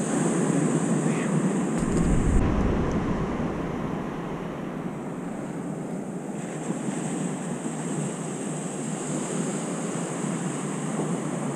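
Ocean surf washing on the beach, a steady rushing noise, with wind buffeting the microphone in a gust about two seconds in.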